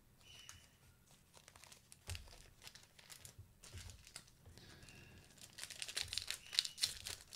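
A Panini NBA Hoops trading-card pack wrapper being torn open and crinkled, in faint scattered crackles that get busier about five and a half seconds in.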